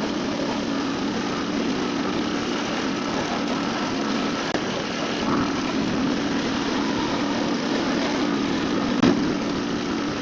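Construction machinery running steadily with a constant buzzing drone, and one brief louder knock about nine seconds in.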